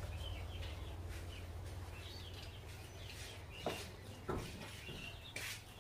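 Birds chirping a few times over a low steady hum, with two short sharp knocks about three and a half and four and a half seconds in.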